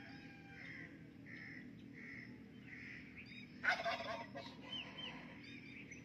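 A rose-ringed parakeet gives one loud, harsh squawk a little past halfway, followed by a few shorter calls. Behind it, other birds give soft notes, repeating about every 0.7 seconds in the first half, with faint chirps throughout.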